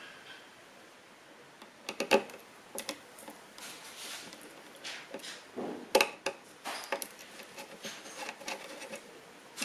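Scattered small clicks, taps and rustles of hands handling a screwdriver and small computer parts, with sharp knocks about two seconds in and about six seconds in.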